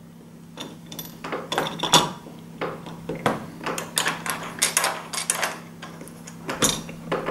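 Irregular small metallic clicks and knocks of a chrome lever door handle and its backplate being pressed into place on a uPVC door over the lock.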